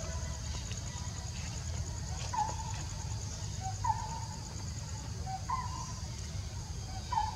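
An animal call, a short note repeated four times about every second and a half, over steady high insect trilling and a low background rumble.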